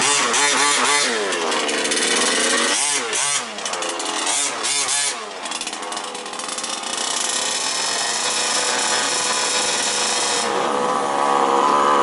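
Small two-stroke petrol engines of 1/5-scale off-road RC cars racing, revving up and down over and over as the cars accelerate and brake through the corners, then running in a steadier high drone in the second half.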